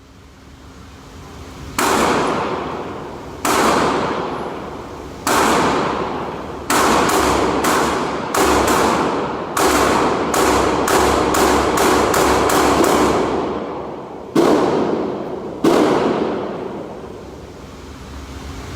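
Gunshots from firearms: about seventeen shots, a few spaced a second or more apart, then a quick string of about a dozen, then two more near the end. Each shot rings out in a long echo.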